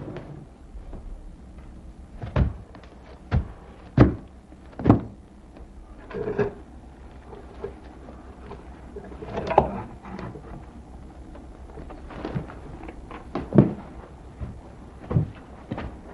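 Irregular thumps and knocks, about nine of them spread unevenly, over a low steady hum.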